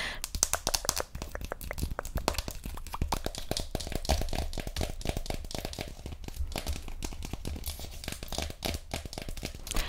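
Mouth sounds made right at a foam-covered microphone: fast tongue clicks and smacks, many in a second, with no pause.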